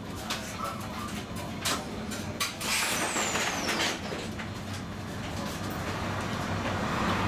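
Interior running noise of a tram: a steady rumble with a low hum, a few sharp clicks in the first couple of seconds, and a short high squeal falling in pitch about three seconds in.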